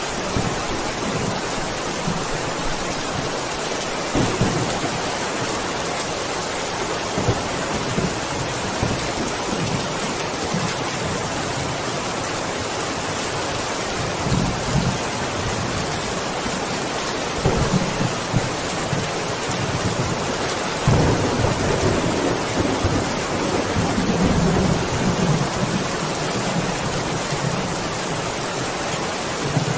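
Heavy rain falling steadily, with low rolls of thunder rumbling from about halfway through, the longest roll near the end.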